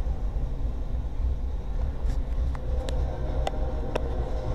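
Coal train's hopper cars rolling past at a grade crossing: a steady low rumble of steel wheels on rail, with a few sharp clicks in the second half.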